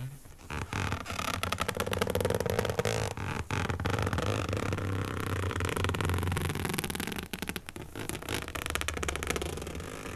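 Fingernails dragged across a whiteboard: a long, harsh scraping screech with a rapid chattering texture.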